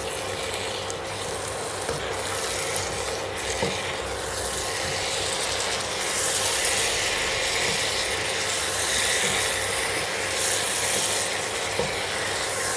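Wooden spatula stirring and scraping chunky vegetables and masala around a nonstick kadai on a high gas flame, with the food sizzling and a few light knocks of the spatula against the pan. The sizzle and scraping get louder about six seconds in.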